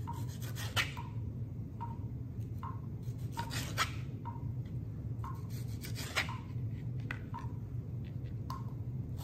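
Kitchen knife slicing cherry tomatoes on a plastic cutting board: a sharp tap of the blade on the board about once a second, over a steady low hum.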